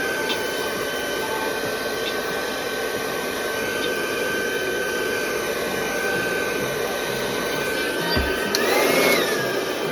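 Hair dryer blowing steadily with a constant whine, drying lace glue. About eight seconds in there is a low thump, then its pitch rises and it gets louder for about a second before settling back.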